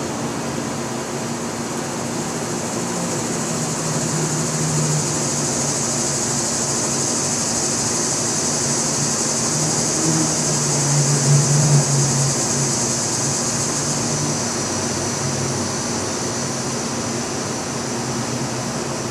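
A distant engine drone that swells twice and is loudest about eleven seconds in, over a steady high hiss.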